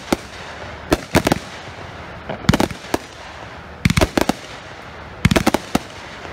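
Cutting Edge Fireworks' Gun Runner multi-shot aerial firework going off: clusters of two to four sharp bangs repeat about every one and a half seconds.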